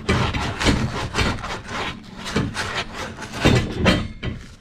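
Sandpaper rubbed against a metal plumbing fitting in quick, uneven scraping strokes, roughing and cleaning the surface so solder will adhere.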